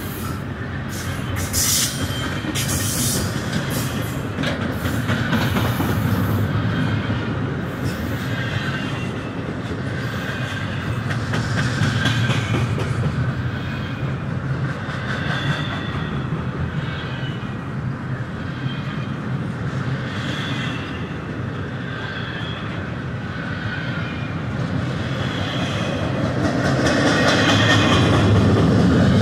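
Double-stack container well cars of a CSX freight train rolling past close by: a steady rumble of steel wheels on rail with short high-pitched wheel squeals coming and going and sharp clicks in the first few seconds. It grows louder over the last few seconds.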